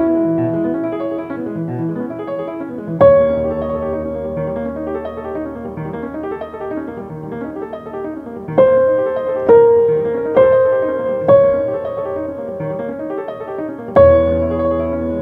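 Slow piano music with sustained notes left ringing. A chord with a deep bass note is struck about three seconds in. From about eight and a half seconds, four single notes follow roughly a second apart, and another chord is struck near the end.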